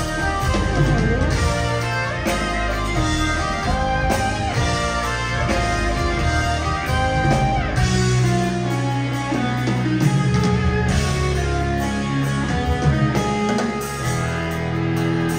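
Progressive rock band playing live: electric guitar over bass, keyboards and drums, with regular drum hits and a heavy low end, in a hall's reverberation.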